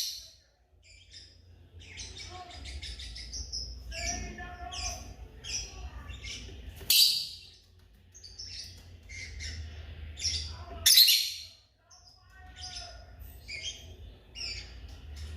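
African lovebirds chirping: a run of many short, high chirps and squawks, with louder calls about seven and eleven seconds in, over a low rumble.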